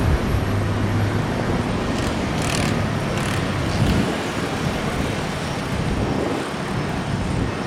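Road traffic: cars passing on a street, a steady rumble with a few brief swells of tyre noise.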